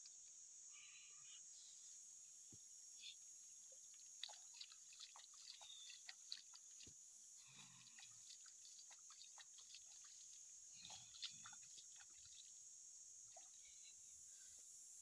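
Near silence: a faint steady high hiss with scattered soft clicks and short scrapes.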